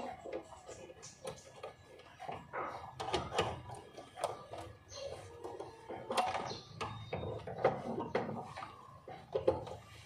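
Irregular clicks and knocks of a seat-belt retractor being handled and positioned in a car's door pillar during a seat-belt replacement.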